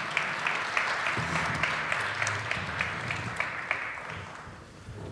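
An audience applauding, a dense patter of many hands clapping that fades out about four seconds in.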